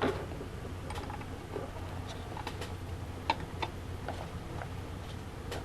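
Scattered light clicks and taps of a car door speaker and its plastic mounting adapter being handled and fitted together, with sharper clicks right at the start and about three seconds in, over a steady low hum.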